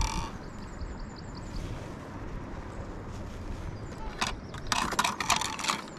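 A gull calling from the sea cliffs: a run of quick, harsh repeated notes near the end, with a shorter call just at the start.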